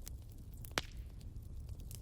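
Wood fire crackling: a steady low rumble with scattered sharp pops, the loudest about three-quarters of a second in.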